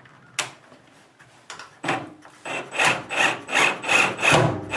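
A single sharp click, then quick back-and-forth rubbing or scraping strokes, about three a second, beginning about two seconds in.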